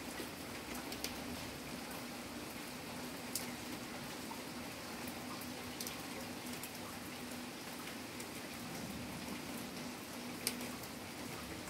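Steady rain falling, with a few single drips striking a hard surface now and then.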